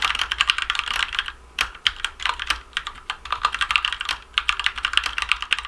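Fast, continuous typing on a Keychron mechanical keyboard with Gateron Red linear switches: a dense run of key clicks, with a brief pause about a second and a half in.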